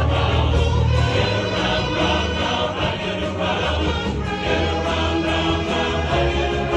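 Men's chorus singing a 1960s pop song in harmony, with strong, sustained low bass notes underneath.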